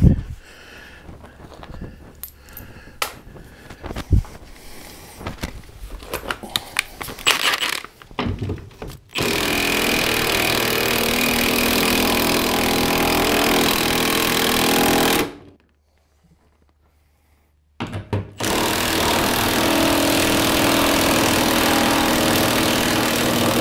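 Cordless power tool run against the sheet-metal floor of a stripped truck body, in two long steady runs of about six seconds each, broken by a sudden stop of about two seconds. Before it starts there are scattered clicks and knocks of parts being handled.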